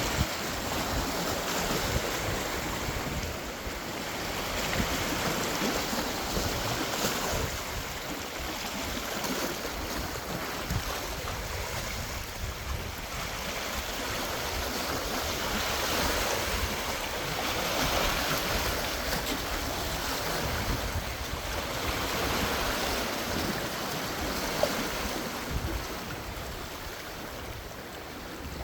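Sea waves breaking and washing against the concrete tetrapods of a breakwater: a continuous rush of surf that swells louder and eases off again every several seconds.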